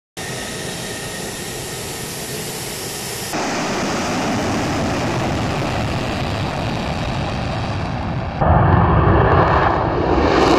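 Jet aircraft engines roaring on a runway, a steady dense roar that gets abruptly louder about three seconds in and again, with a heavy low rumble, about eight seconds in.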